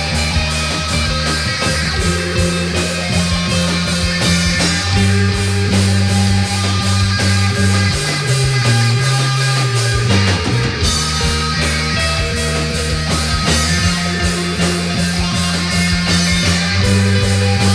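Indie rock song playing: a band with electric guitar, bass notes held and changing, and drums keeping a steady beat.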